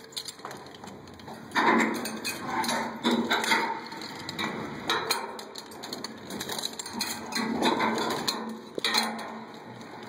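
Irregular knocking and scraping inside a water tank, several louder clattering bursts about every one to two seconds.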